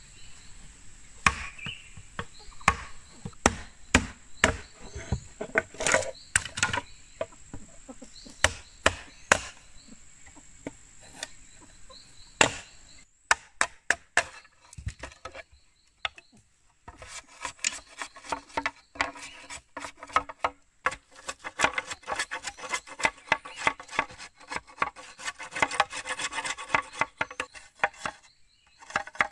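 Bamboo being worked by hand: sharp wooden knocks about once a second. After a few quieter seconds comes a long run of fast rasping strokes, from sawing or scraping the bamboo.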